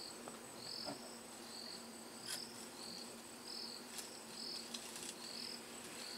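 Insects chirping in short high pulses, a little faster than once a second, over a steady thin high drone. A few sharp snaps cut through, from an African elephant breaking leafy twigs as it feeds.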